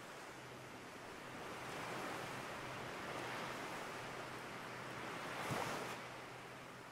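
Ocean surf sound effect: a wash of breaking waves that swells about two seconds in and peaks briefly near the end.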